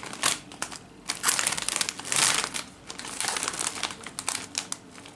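Metallised plastic crisp bag crinkling as it is handled and turned over in the hands, in irregular bursts that are loudest about two seconds in.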